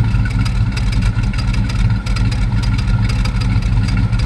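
GM LT1 V8 idling with a misfire, heard at the exhaust: a steady low engine sound. The owner traces the misfire to the driver's side bank, which is putting out black sooty exhaust.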